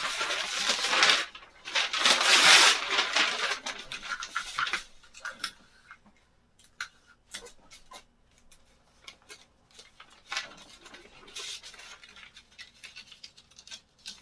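Rustling and scraping handling noises with scattered small clicks and clinks, loudest about two to three seconds in, then quieter intermittent rustles, as bedding and curtain fabric are moved.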